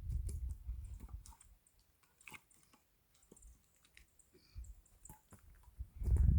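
Scattered light clicks and knocks, with a low rumble at the start that fades out and returns strongly near the end.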